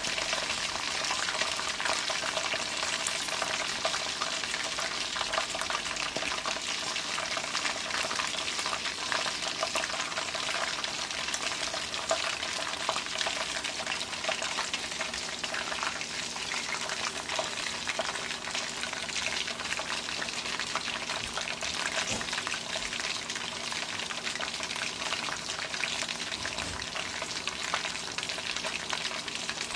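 Chicken deep-frying in hot oil in an aluminium wok: a steady sizzle thick with small crackles from the bubbling oil.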